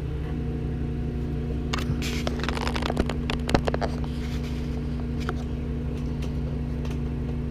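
Microwave oven running with a steady electrical hum, just started. From about two to four seconds in, a run of crackles and sharp clicks sounds over the hum.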